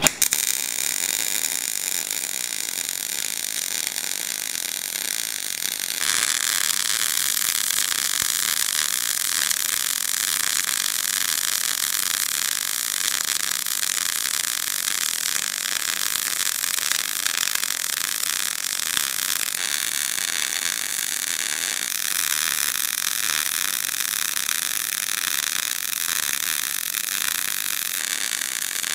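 Wire-feed welder's arc crackling and sizzling steadily as a bead is run on steel axle brackets, growing louder about six seconds in.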